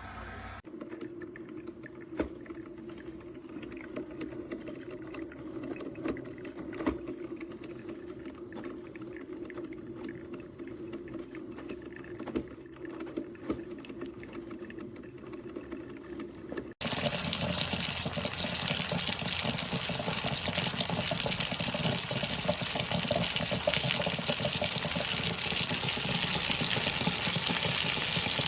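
Hamilton Beach drip coffee maker brewing: a steady low hum with scattered ticks and drips. About two-thirds of the way in it switches abruptly to much louder, dense sputtering and gurgling as hot water spits through.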